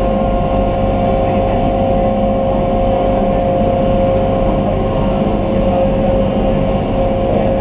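Ferry boat's engine running steadily under way, heard from aboard: a constant drone with a steady whine over it.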